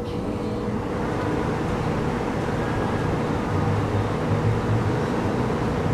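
Steady low mechanical drone with a faint constant hum, growing slightly fuller in the low end about halfway through.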